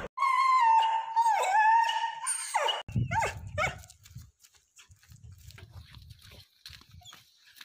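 A dog's long, high-pitched whining cry held for over two seconds, then a few short, louder yelps; after that only faint rustling.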